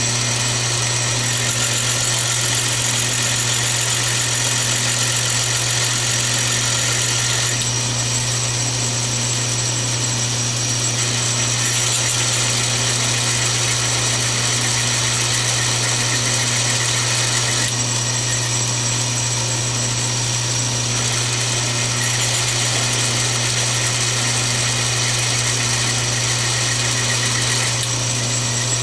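Atlas 618 bench lathe running steadily, its motor and drive giving a constant hum, while a lathe tool turns down a small brass rod; a higher hiss comes and goes in several stretches of a few seconds as the tool is fed in for each pass.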